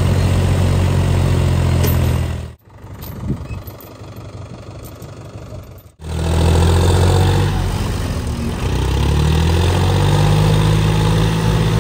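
Diesel tractor engines running hard under load as a Mahindra tractor tows a John Deere tractor bogged in paddy mud. The engine sound cuts off abruptly about two and a half seconds in, goes much quieter for about three seconds, then comes back loud, its pitch shifting a few seconds later.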